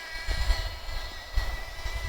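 Small pull-start RC car engine running at a distance, a steady high-pitched whine over a low, uneven rumble.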